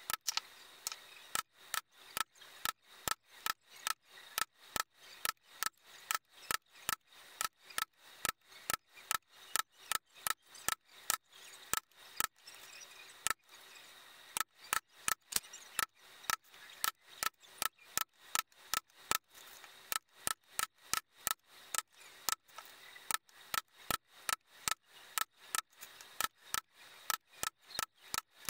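Mallet striking a metal punch to punch a row of stitching holes in leather: sharp taps about three a second, each with a short metallic ring, with a few brief pauses.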